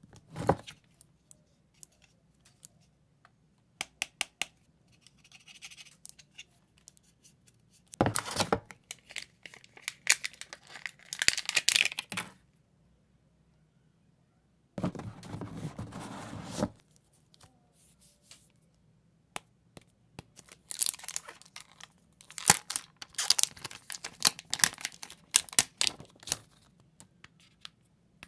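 Handling noise from unpacking a smartphone box: plastic wrap and film crinkling and rustling, cardboard packaging shifting, and scattered sharp clicks and taps. It comes in several bursts with quiet gaps between them.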